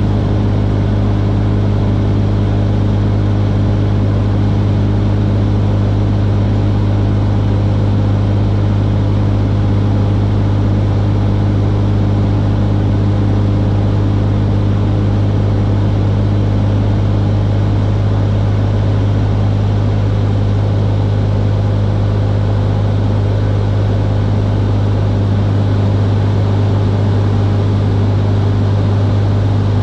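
Stinson 108 light aircraft's piston engine and propeller running steadily in cruising flight, a loud, even, low-pitched drone.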